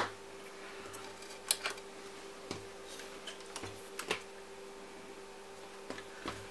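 Scattered light clicks and knocks of a graphics card and its PCIe power cables being handled on a workbench, about half a dozen, over a steady faint hum.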